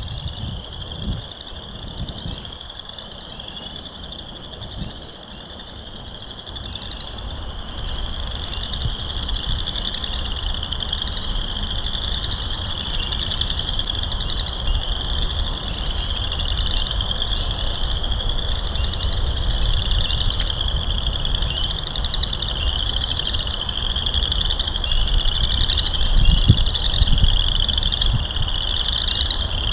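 A marsh full of frogs calling in a dense chorus: many short, rising trills overlapping one another, growing louder after about six seconds. Wind rumbles on the microphone underneath, with a stronger gust near the end.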